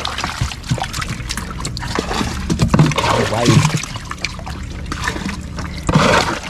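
Water splashing and trickling, with a few sharp knocks.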